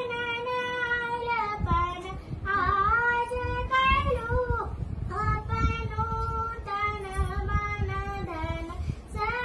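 A young girl singing a song solo, unaccompanied, in long held notes that glide up and down in pitch.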